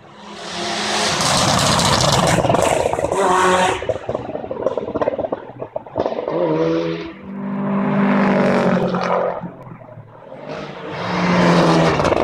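Rally cars passing at speed on a special stage, one after another: each engine at high revs swells up and fades away, with gear changes and lifts of the throttle between. The first pass, in the first few seconds, is the loudest, with a strong rush of noise.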